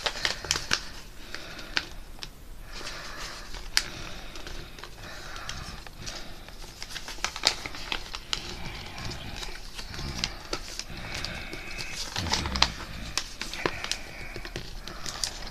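Paper being folded and creased by hand: crinkling and rustling with scattered sharp ticks and taps as the folds are pressed flat.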